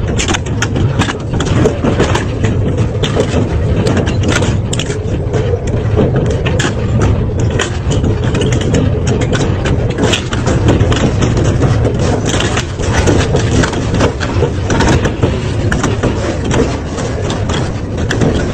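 Double-shaft shredder's steel cutter rotors crushing and tearing apart a cast-metal piston compressor pump. A steady heavy grinding, cut through by many sharp cracks and snaps of breaking metal.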